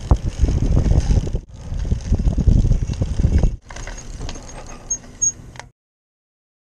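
Wind buffeting a camera microphone over rumble and clatter from a recumbent trike rolling along a road, cut off abruptly twice by edits and then stopping dead into silence near the end.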